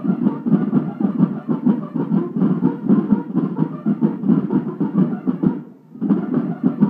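A section of parade snare drums in a school drum-and-bugle corps playing a fast, even march cadence; it breaks off for about half a second near the end, then starts again.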